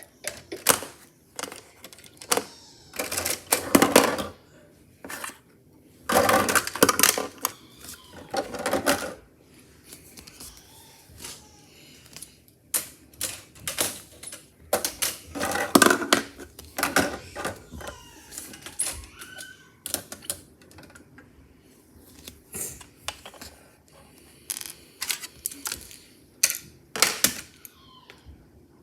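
Hard plastic LEGO bricks clicking and clattering in irregular bursts, with a few dense runs of rattling between single clicks.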